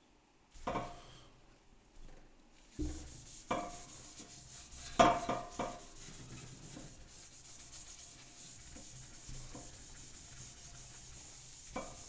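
Abrasive non-woven pad scuffing the painted steel of a compressor air tank, a steady rubbing that keys the old paint for primer. In the first half there are a few knocks and bumps as the tank is handled, the loudest about five seconds in.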